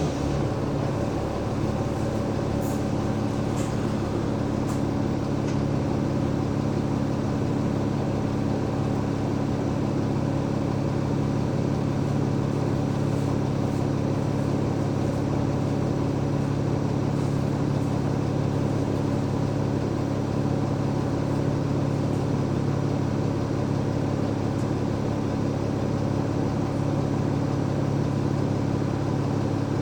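Cummins ISL 8.9-litre six-cylinder diesel engine of an Alexander Dennis Enviro500 MMC double-decker bus running at a steady, unchanging speed: a low hum of several steady tones that holds level throughout.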